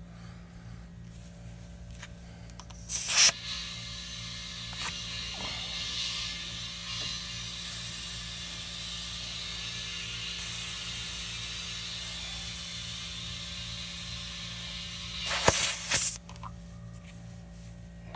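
Air chuck on a tire valve stem, fed from an air tank: a short loud hiss about three seconds in, a steady hiss of air flowing into the tire for about twelve seconds, then another short loud hiss near the end. The owner thinks the tank does not hold enough air.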